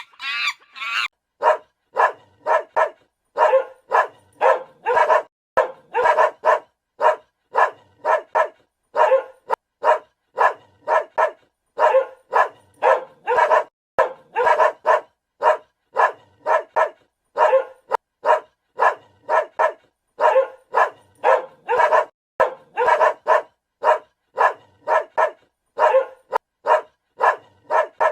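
A dog barking over and over, short barks at about two a second, often in quick runs of two or three.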